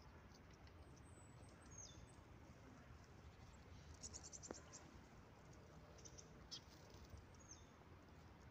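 Faint high-pitched chirps and short whistles of small birds over a low steady background rumble, with a quick run of about six chirps near the middle.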